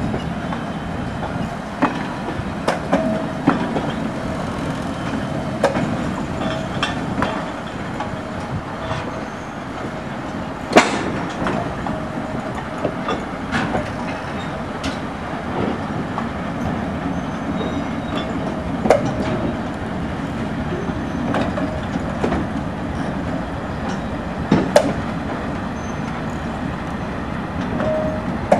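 Diesel locomotives, including a TEM2 shunter, running with a steady low engine rumble, with irregular clicks and knocks from the wheels and couplings and a few sharper knocks along the way.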